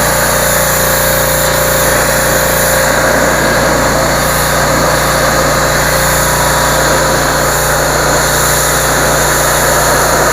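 Generac 2800 PSI gas pressure washer's small engine running steadily at an even, unchanging level.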